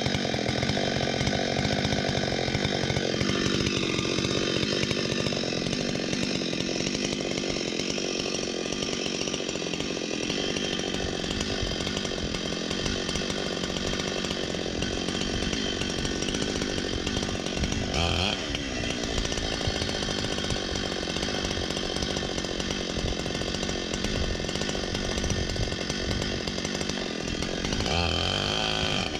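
Two-stroke chainsaw running at high revs and cutting timber. Its engine pitch dips and recovers a few times: briefly about three seconds in, around the middle, and again near the end.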